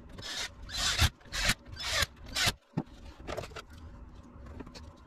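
About five short rubbing, scraping strokes in quick succession from a caliper worked against a motorcycle clutch pack while its stack height is measured, then quieter handling noise for the rest.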